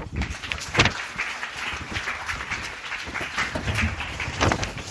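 Audience applauding: many hands clapping together, ending a lecture.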